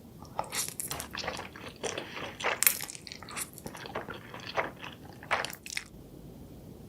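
Irregular wet crunching and squishing of seafood, a dense run of sharp crackles that stops about six seconds in.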